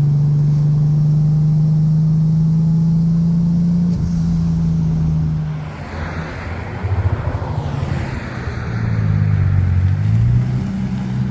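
Turbocharged car engine holding high revs under load, then lifting off about six seconds in. The HKS SSQV blow-off valve, fitted with a 3D-printed insert, vents with a hiss as the revs fall. The engine then picks up again with its pitch wandering up and down.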